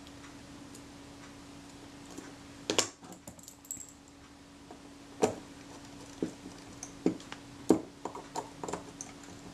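Tweezers and small metal parts clicking and tapping against the top-plate film-advance mechanism of a Kodak Retina IIIC camera while a shim washer is fitted: a few separate sharp clicks, the loudest about three and five seconds in, over a faint steady hum.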